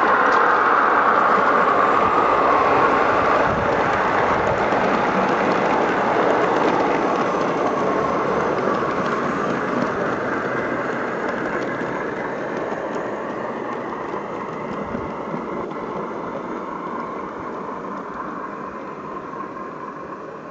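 Model railway diesel multiple unit in British Rail blue running on the layout's track: a steady rumble of wheels on rail with a faint motor whine, fading steadily as the train moves away.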